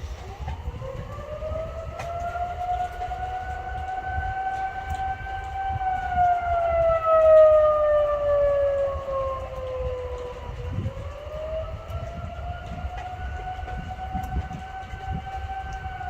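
Outdoor tornado warning siren wailing. Its tone rises, holds high, falls slowly over several seconds, then rises again, and is loudest about seven seconds in. A steady low rumbling noise runs underneath.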